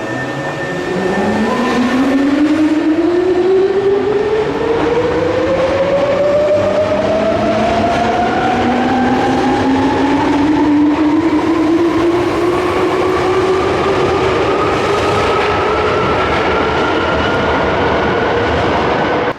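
Subway train pulling out of the station, the whine of its electric traction motors climbing steadily in pitch as it accelerates, over the running noise of the cars on the rails.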